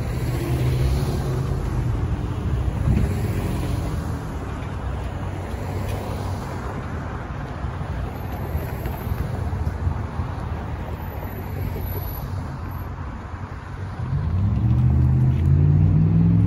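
Road traffic: cars driving through the intersection with a steady low rumble. Near the end a vehicle accelerates past, louder, its engine note rising in pitch.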